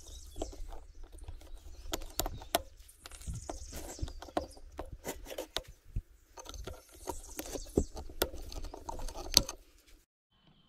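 Irregular metallic clicks, taps and knocks from small engine parts being handled as the piston is fitted onto the connecting rod of a two-stroke engine. The sounds stop abruptly near the end.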